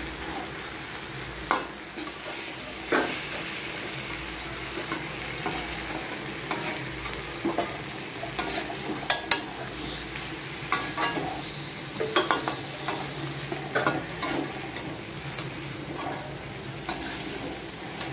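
Raw banana slices sizzling in oil in a heavy pan, a steady hiss. Over it come irregular scrapes and clicks of a metal spoon against the pan as the slices are turned gently.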